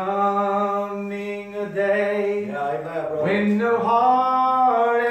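A man singing a slow hymn unaccompanied, holding two long notes with a change of pitch between them about halfway through.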